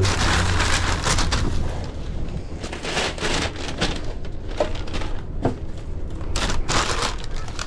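Brown paper bag rustling and crinkling as it is shaken open by hand and set on a stainless steel counter, in a run of irregular rustles, over a steady low hum.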